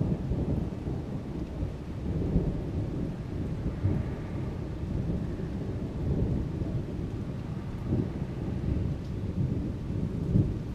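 Distant thunder rumbling low and rolling on, swelling and fading several times, over heavy rain falling during a convective storm.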